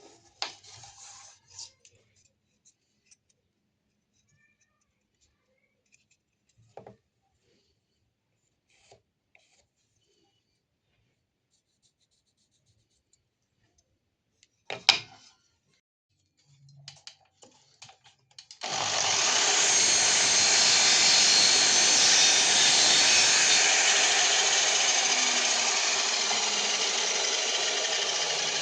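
A few light clicks and knocks of wooden parts being handled, with one sharp knock about 15 s in. About 19 s in, an electric power tool starts working wood and runs steadily and loudly.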